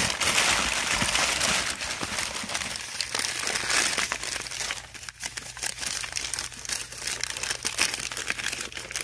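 Crumpled newspaper packing crinkling and rustling as hands unwrap an item from it: a continuous rustle full of quick crackles.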